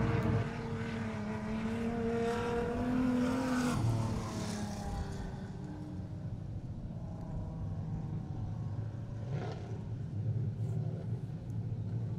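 Speedway street stock sedan engine running at slow caution pace. Its note rises a little, then falls away about four seconds in, leaving a fainter engine sound.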